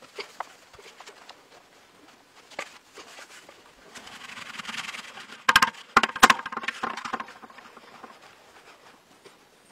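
Loose dry soil pouring out with a soft hiss, then a few sharp, ringing knocks about halfway through, followed by hands scraping and spreading the soil.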